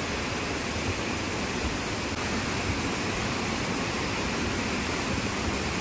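Heavy monsoon rain pouring down in a steady, unbroken hiss.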